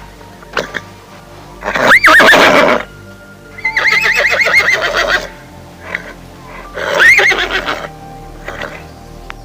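Horse whinnying three times, the middle whinny the longest with a rapid quavering pitch, over soft background music.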